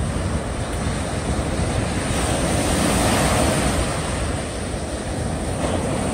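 Small waves breaking and washing up a sandy beach, a steady rush of surf with wind buffeting the microphone; the wash swells a little a few seconds in.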